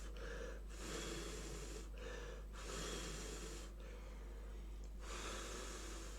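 A person breathing slowly and softly close to the microphone, a series of breaths in and out of about a second each.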